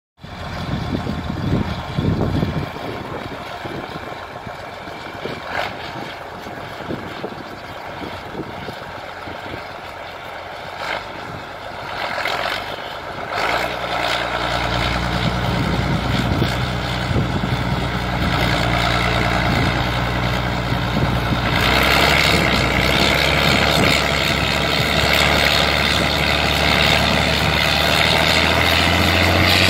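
Heavy diesel engine starts running steadily a little under halfway through, then works harder and louder from about three-quarters through, with a brighter engine note. Before it comes in there is only an uneven rumble with scattered knocks.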